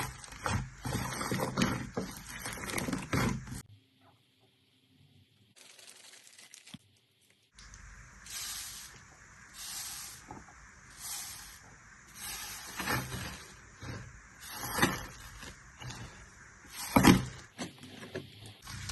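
Slime being squeezed and worked by hand, making squishing sounds in irregular bursts. The sound stops for about two seconds a few seconds in, then returns as separate squishes every second or two.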